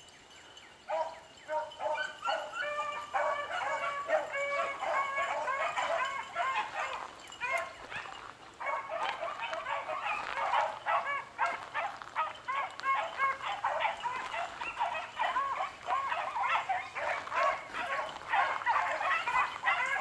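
A pack of beagles baying in chorus as they run a rabbit's scent trail: many overlapping short, high-pitched barks. They start about a second in and keep going, with a brief lull near the middle.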